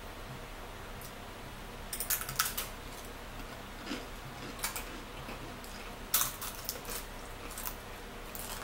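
Crisp, thin cookie-cracker snacks being bitten and crunched, in several short bursts of crackling, the loudest about two and six seconds in.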